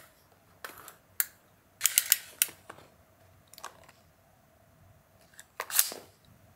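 Small retractable tape measure being worked over a canvas tote: scattered clicks and short rattling runs as the tape is pulled out and let back in, the longest about two seconds in and another near the end.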